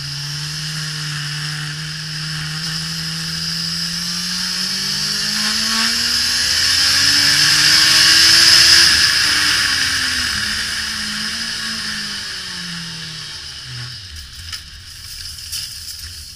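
Onboard sound of a Suzuki GSX-R1000 K5's inline-four engine with heavy wind rush. The engine climbs steadily in pitch under acceleration, with the wind growing louder to a peak about nine seconds in. It then falls in a few steps as the rider slows and shifts down, settling to a low engine note near the end.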